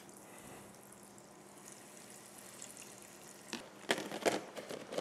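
Breaded chicken schnitzel frying in hot vegetable oil in a non-stick pan: a quiet, steady sizzle with fine crackle. From about three and a half seconds in, a few sharp clicks of a plastic food container being handled.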